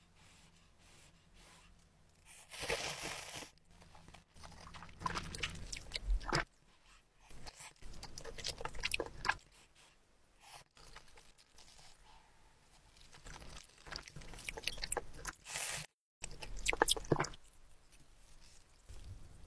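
Close-miked eating of spicy ramyeon with rice cakes and dumplings: irregular wet chewing, biting and slurping of noodles.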